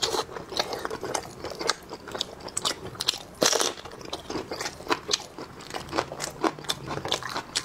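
Close-miked chewing of sheep blood sausage, a rapid irregular run of mouth clicks and bites.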